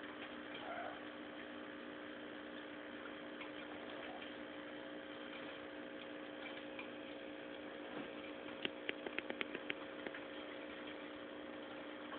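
Small aquarium's electric pump humming faintly and steadily. Near the end comes a quick run of about eight light ticks.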